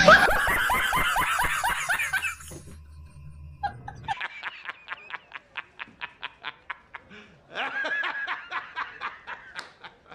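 Men laughing hard. The first laugh fades about two and a half seconds in. After a short quiet stretch, a second man's laugh starts about four seconds in: rapid, evenly spaced 'ha's, about four or five a second, with a brief break for breath in the middle.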